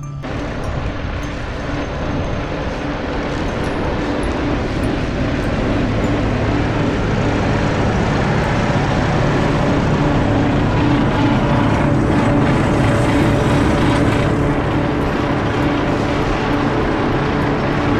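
Diesel engines of a Massey Ferguson 3060 and a New Holland tractor working a field close by. The engine drone is steady and grows louder over the first several seconds.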